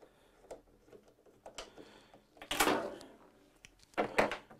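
Hand handling noises at a longarm quilting machine's carriage: a short scraping rustle about halfway through, then a few sharp clicks near the end as hardware for the rear-wheel channel lock is handled.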